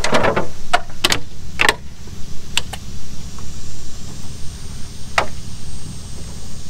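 Magnetic mesh window screen being fitted over a van's door window: a series of sharp clicks and taps as its magnets snap against the steel door frame and hands press it into place, most of them in the first two seconds. Under them runs a steady low rumble.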